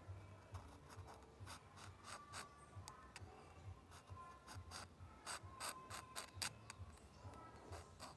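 Metal dip pen nib scratching across textured paper in short, quick scribbling strokes, coming in clusters, with the busiest runs about two seconds in and again past the middle.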